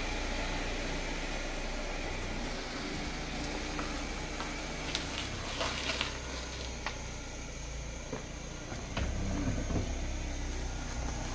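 A Chevrolet Corsa sedan's engine running at idle, a steady low hum, with a few short clicks and scuffs about five to seven seconds in.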